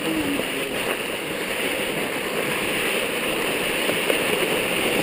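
Mountain bike tyres rolling over a snow-covered track, giving a steady, even rushing noise.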